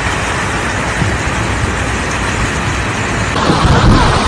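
Flash floodwater rushing, a steady noisy rush; a little over three seconds in it changes to a louder, lower rush of muddy floodwater.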